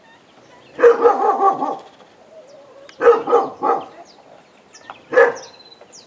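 Dog barking in three bouts: a quick run of barks about a second in, three barks in the middle, and a single bark near the end.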